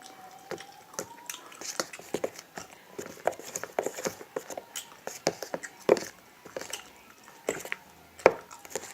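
Irregular light clicks and knocks of a spoon working through a bowl of glue-and-shaving-foam slime mixture, tapping against the bowl as the glitter is stirred in.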